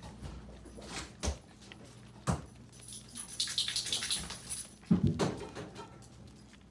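Miniature pinscher puppies eating dry kibble from a plastic tub: small clicks and crackle of the food and the tub, with a few sharp knocks as they jostle around it. The busiest crackle comes about three to four seconds in, and the loudest knock about five seconds in.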